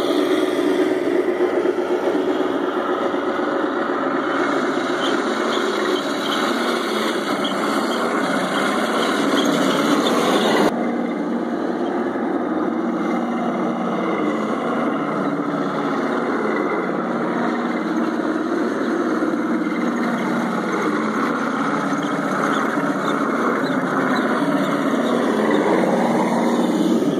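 Radio-controlled Leopard 1 model tanks driving, with a steady engine-like running sound from the models. The sound changes abruptly about ten seconds in.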